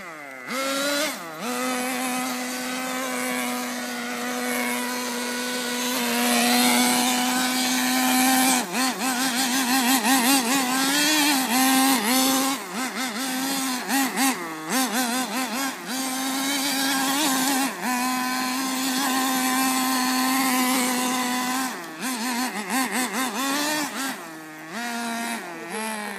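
Small two-stroke nitro glow engine of a 1/10-scale RC truck running at high revs. It holds a steady high pitch for several seconds at a time, then warbles up and down with the throttle and briefly drops off a few times.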